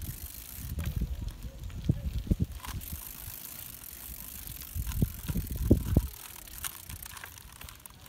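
Bicycle rolling along an asphalt road, with scattered sharp clicks over a high hiss and low rumbling gusts that are loudest about a second in and again near the middle.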